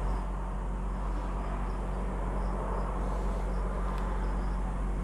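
Steady outdoor background with a low, constant hum, over which faint high insect chirps repeat every half second or so.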